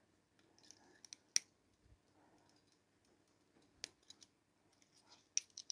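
A few small, sharp metallic clicks and taps of an antique Ansonia clock movement's brass plates and wheels being handled during reassembly, the sharpest about a second and a half in and another near four seconds.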